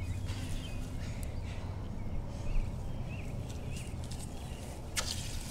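Quiet outdoor background: a steady low rumble with a few faint, short high chirps, and a single sharp click near the end.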